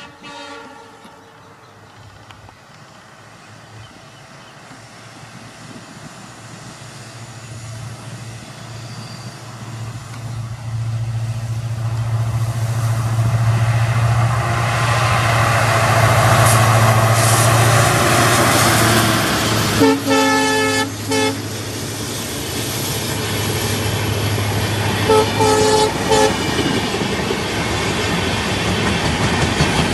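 WDP4 diesel locomotive approaching under acceleration: its EMD 16-cylinder two-stroke engine runs louder and louder into a steady drone. Its horn sounds a short blast at the start, a longer blast about two-thirds of the way through, and two short toots a few seconds after that.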